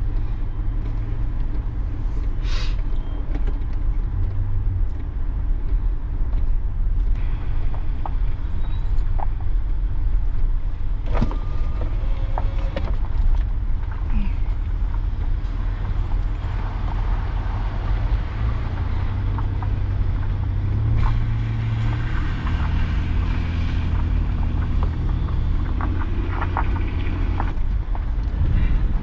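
Mitsubishi Challenger 4WD driving slowly over a dirt track: steady low engine and tyre rumble with occasional knocks and rattles over the bumps. About halfway through, a rush of splashing water joins in as it fords a shallow creek.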